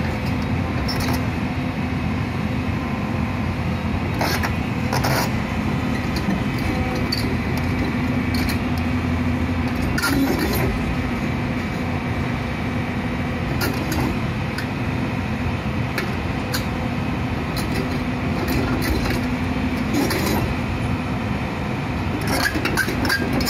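Hyundai Robex crawler excavator's diesel engine running steadily with a constant hum, with occasional sharp knocks as its bucket works against the end of a steel truss bridge.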